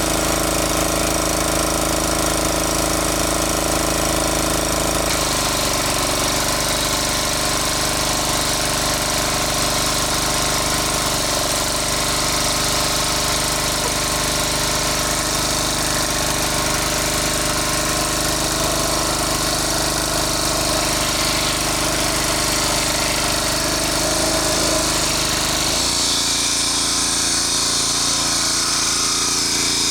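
Engine-driven water pump running steadily at full work, a loud, even mechanical drone with a knocking beat. Its pitch shifts about five seconds in and again near the end.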